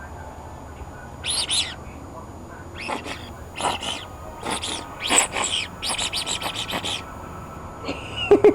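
Songbird chirping outdoors: a series of short high chirps, with a quick trill of calls partway through, over a low steady background. Near the end there is a brief, louder sound.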